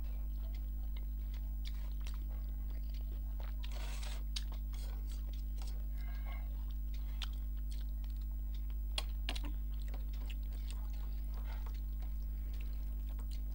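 Close-miked chewing of a mouthful of rice and mutton curry, with wet mouth clicks, and fingers mixing rice on a steel plate. One sharper tap about nine seconds in is the loudest moment, over a steady low electrical hum.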